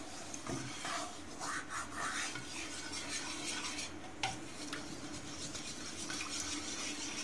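Wooden spoon stirring a thick mixture in a metal pan, a soft continuous scraping and squelching, with a single knock about four seconds in. A faint steady hum runs underneath.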